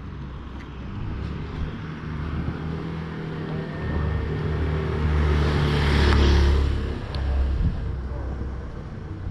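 A car driving past on the street, its engine hum and tyre noise growing to a peak about six seconds in, then fading away.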